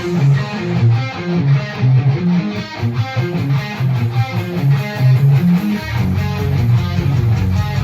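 Guitar music: a run of short picked notes over a bass line, which fills out into steady low chords about six seconds in.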